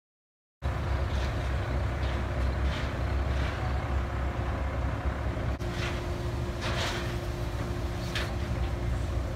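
A heavy car-carrier truck's diesel engine running steadily with a low rumble, cutting in abruptly from silence about half a second in. A few short hisses come in the second half.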